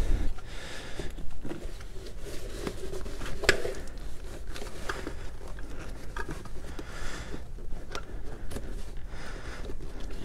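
Hands working a cable in under plastic dash trim and the rubber floor mat: scraping and rustling with scattered light clicks and taps, one sharper click about three and a half seconds in.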